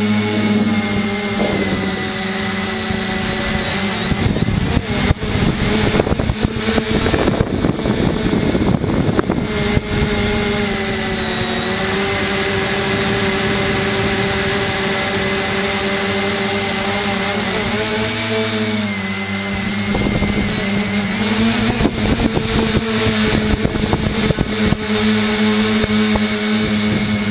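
Bambucopter Bluebird tricopter's three electric motors and propellers running steadily, heard through the onboard camera's microphone, with the motor note shifting in pitch for a couple of seconds about two-thirds of the way through. Rough, gusty rushing noise lies over it about four seconds in and again after twenty seconds.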